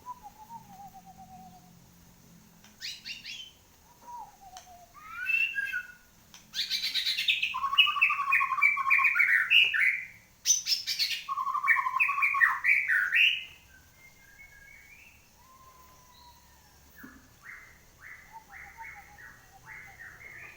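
A murai songbird, just past its moult, singing: short descending whistles and chips at first, then a loud, dense run of rapid whistled phrases and trills through the middle, easing back to quieter short notes near the end.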